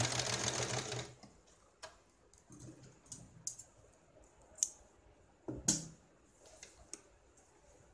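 Electric sewing machine running a seam, stopping about a second in. Then scattered sharp clicks and snips as thread ends are cut with scissors and the fabric is handled, with one louder thump past the middle.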